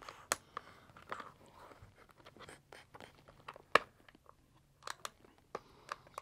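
Scattered light clicks and scraping of hands working the plastic clip hardware on a Riddell SpeedFlex football helmet, with one sharper click a little past halfway.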